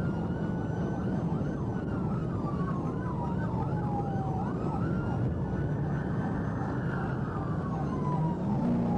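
Police siren wailing in long, slow rising and falling sweeps, with a faster yelp of about four sweeps a second overlapping in the middle, over a steady drone of engine and road noise from the pursuing patrol car.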